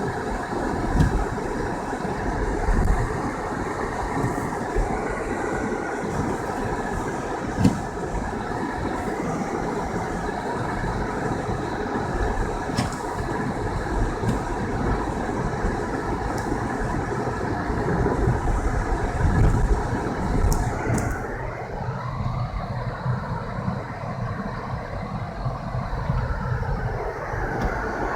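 Car driving on a snow-covered road: steady engine and tyre noise with a few sharp knocks and thumps. The noise eases slightly about three-quarters of the way through.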